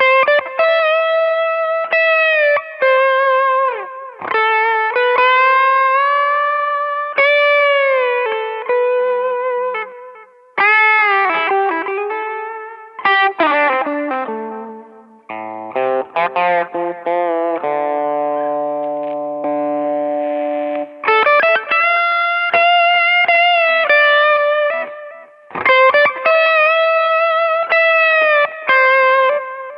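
Electric guitar, a Siam Custom, played through an MXR CSP202 Custom Comp compressor pedal into a Mooer GE300 Lite amp modeler: melodic single-note lead lines with many string bends and long sustained notes. About halfway through a quick descending run leads into a few seconds of held notes, then the bent-note phrases return.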